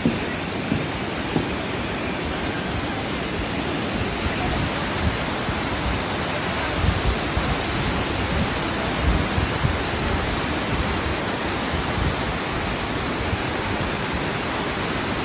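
Small waterfall cascading over rocks into a pool: a steady, even rush of falling water.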